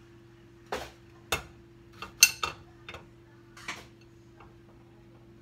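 A handful of sharp knocks and clicks on a ceramic plate as a zucchini is handled and trimmed on it. The loudest comes a little past two seconds in.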